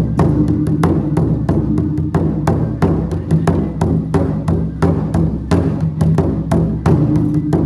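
Chinese gong-and-drum (luogu) percussion playing a steady, quick rhythm of strikes, about three to four a second, with the drum and gongs ringing on underneath.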